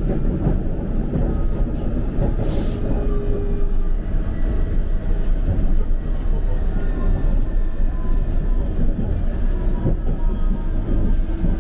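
London Underground District line train running at speed, heard from inside the carriage: a steady, loud rumble of wheels on track and traction motors.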